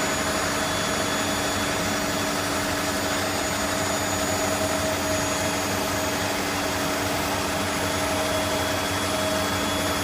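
Auto table power-feed motor on the X axis of an ARGO 5VH milling machine running steadily, driving the table along at a constant speed with an even hum and whine.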